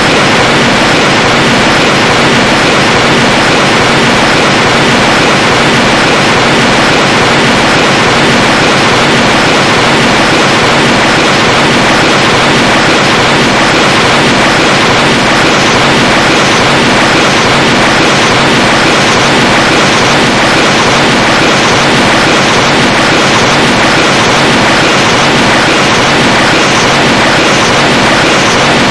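Loud, steady rushing hiss from a Hanna-Barbera sound-effects library, unchanging in level, with a faint regular flutter in the high end from about halfway through.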